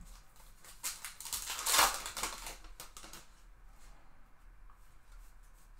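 A baseball card pack's wrapper torn open with a crackling rip about a second in, followed by the faint rustle and clicks of the cards being handled and flipped through.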